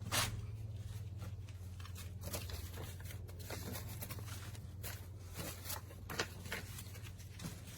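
Cardboard box and packaging being handled: scattered rustles and clicks, over a steady low hum.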